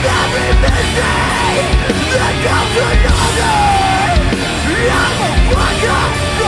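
Hardcore song with heavy guitars, drums and yelled vocals.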